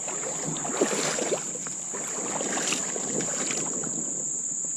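Irregular splashing and sloshing of creek water while a hooked smallmouth bass is being landed, over a steady high-pitched drone of crickets.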